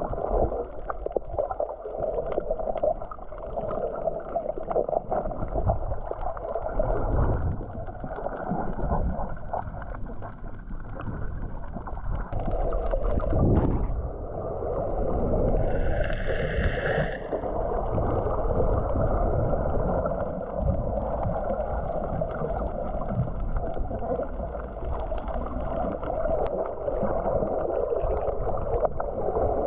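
Muffled, steady rush and rumble of water heard by a camera microphone underwater while snorkeling, with a short hissing burst about sixteen seconds in.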